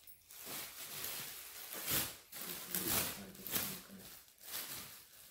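Clear plastic packaging crinkling and rustling in irregular bursts as clothes wrapped in it are handled.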